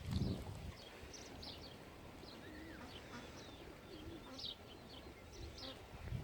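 Birds calling, with many short high chirps scattered throughout and a few lower warbling or cooing notes. A brief low rumble comes right at the start.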